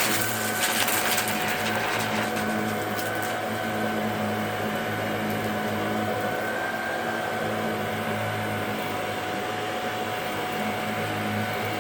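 Shark DuoClean NV801UK vacuum cleaner running steadily with a constant motor whine and hum. For about the first two seconds it crackles and clicks as it sucks up loose debris from the mess test.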